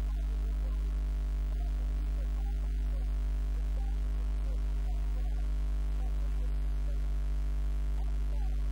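Steady electrical mains hum with its overtones, unchanging in level, with faint wavering sounds underneath.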